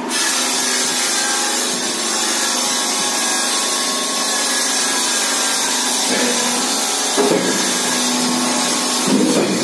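Gaurav Machine Tools hydraulic fly ash brick press running, with a steady harsh hissing noise that starts suddenly. A few clunks come in the second half.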